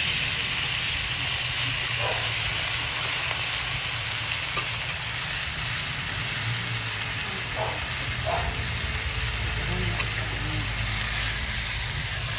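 Tilapia pieces frying in a wok with chilies, a steady sizzle.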